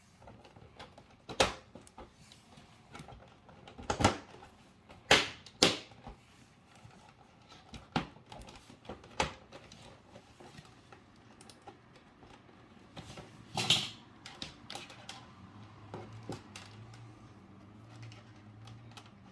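Irregular plastic clicks and knocks as the monitor's plastic back shell is handled and fitted back on, a sharp snap every second or few; the loudest come about four to six seconds in.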